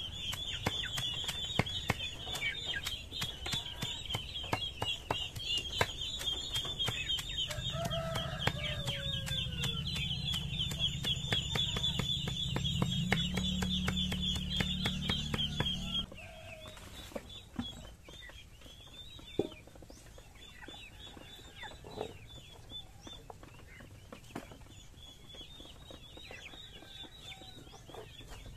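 A long blade chopping leafy greens on a wooden chopping stump: a rapid, steady run of knocks over a steady high-pitched buzz. Both stop suddenly about halfway through, leaving a quieter stretch with a few knocks. Chickens cluck throughout.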